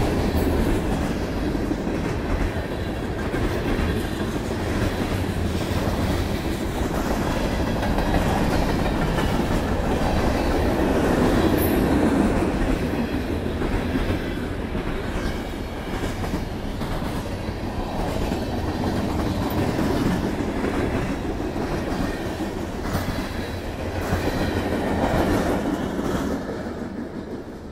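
Freight train cars (covered hoppers, boxcars and centerbeam lumber flatcars) rolling past close by: a steady rumble with repeated clacks from the wheels on the rails. The noise drops off near the end as the last cars go by.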